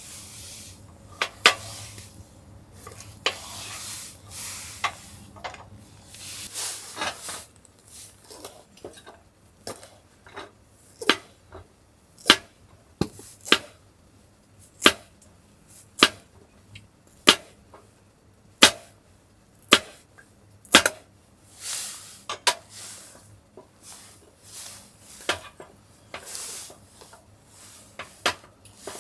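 Food preparation: a series of sharp knocks and clicks from kitchen utensils. Through the middle stretch they come as an even run of about one knock a second, with softer scraping and rustling between them near the start and the end.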